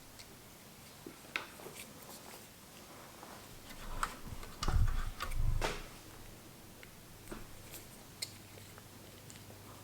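Scattered light clicks and taps, with a few dull thumps about four to six seconds in: small parts and tools being handled while a PS3 Slim console is worked on.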